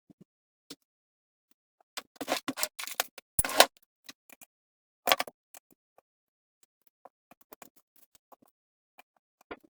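Hand tools and metal rifle parts being handled on a workbench while the scope is taken off an air rifle: scattered clicks and scrapes, a cluster of knocks about two to three and a half seconds in, and a sharp knock about five seconds in.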